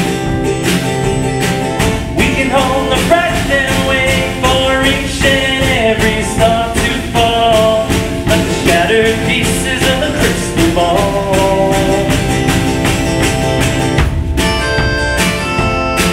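Live acoustic folk-rock playing with no lyrics: strummed acoustic guitar and a small drum kit of kick drum, snare and mounted tambourine keeping a steady beat, with a wavering lead melody over it.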